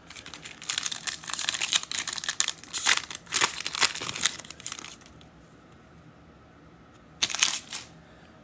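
Foil trading-card pack wrapper crinkling and tearing as it is ripped open and handled, in a long stretch of crackling, then a short second burst near the end.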